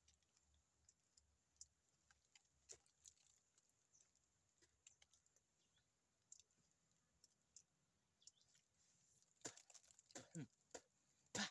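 Teeth biting and tearing at hard bark on a thin tree trunk: faint, scattered clicks and scrapes, with a few louder sounds near the end as a strip of bark comes away.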